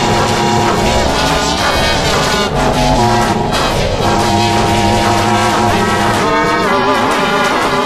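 Loud, distorted music with brass-like tones: an animated clip's soundtrack run through layered pitch-shift effects.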